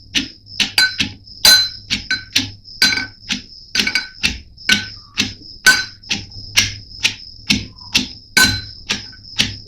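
Pestle pounding raw onions in a mortar: sharp, even strikes, about two to three a second, each with a brief ringing tone.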